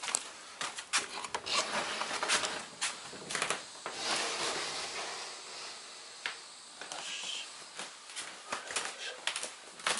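Rubbing and rustling handling noises with scattered light knocks, as things are picked up and moved about in a small room.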